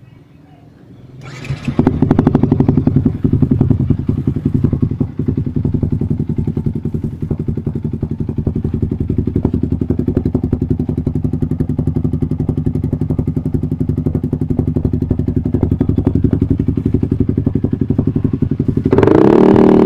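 Yamaha YZF-R15's single-cylinder engine starting about a second in, then idling with a steady rapid pulse through an Akrapovic GP Lorenzo exhaust. It gets louder near the end.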